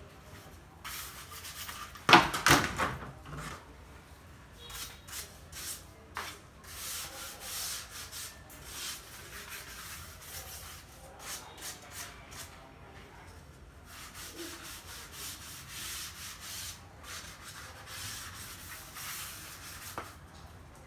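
A small hand-held sponge pad rubbing up and down the faces of wooden flooring planks in quick, irregular strokes. About two seconds in there is a brief, much louder clatter.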